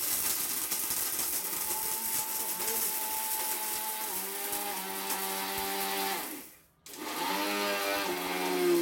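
LG 850-watt copper-motor blender running with its small stainless-steel dry-grinding jar, pulverising brick chunks into fine powder: a loud grinding noise with a steady motor whine. It stops for a moment about six and a half seconds in, then starts again.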